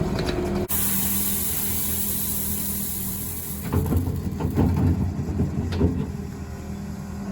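Tractor engine running steadily while a loader bucket of gravel is tipped out. A rushing hiss of pouring stone is followed by several clattering knocks about four to six seconds in.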